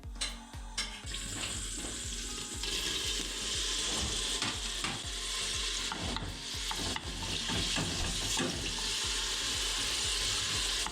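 Pork frying in oil in a pan: a steady sizzle that starts at once and grows louder about two and a half seconds in, with the repeated scrape of stirring in the pan.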